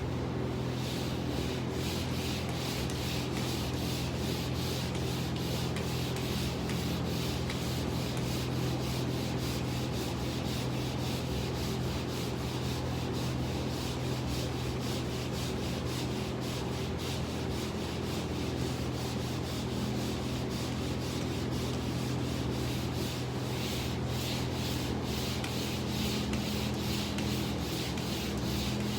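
Pole sander's sandpaper rubbing steadily back and forth over drywall, a continuous rough scraping sound, with a steady low hum underneath.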